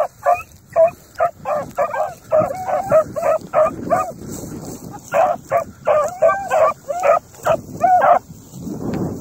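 Beagles yelping and baying in quick runs of short, high cries, several a second, breaking off briefly around the middle: the cry of hounds working a scent. Dry grass rustles near the end.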